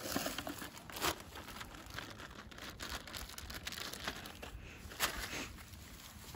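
Crinkling and rustling of hands handling frozen fish bait to put it on a hook, with two sharper crackles about one second and five seconds in.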